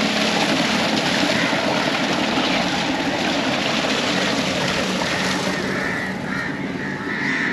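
Tube-well water gushing steadily out of the pipe, pumped by a tractor-driven borehole pump, with the engine's steady hum underneath.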